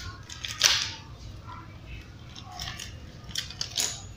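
A small clear plastic bag crinkling in the hands as it is handled. A few short crackly rustles, the sharpest about half a second in and more near the end.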